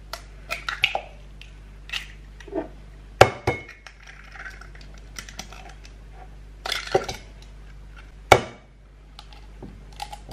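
Eggs being knocked against the rim of a ceramic mug and cracked open: two sharp knocks about five seconds apart, with lighter clicks and shell sounds between them.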